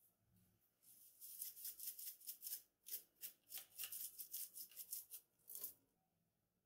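Salt shaken from a shaker into flour in a glass bowl: a rapid run of soft, crisp rattling shakes, several a second, for about five seconds, then stopping.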